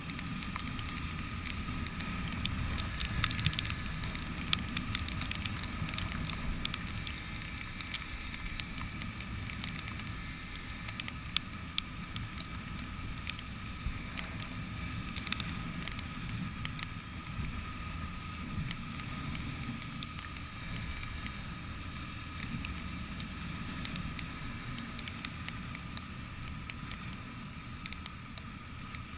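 Motorcycle riding on a wet road in the rain, heard from a camera mounted on the bike: a steady low rumble of wind and running gear, with scattered sharp ticks throughout.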